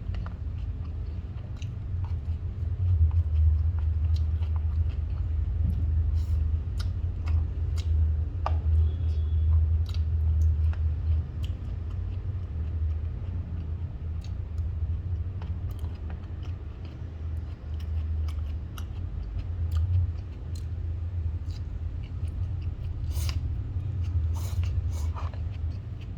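Close-miked chewing and biting, with many short sharp clicks and crunches scattered throughout, over a steady low rumble.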